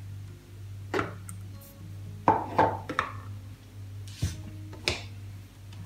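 Background music, with a handful of sharp notes standing out over a steady soft bed.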